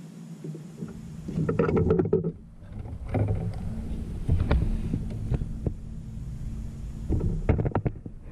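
A largemouth bass splashing at the side of a kayak as it is landed, with knocks of handling against the hull, in three bursts. A steady low hum runs underneath.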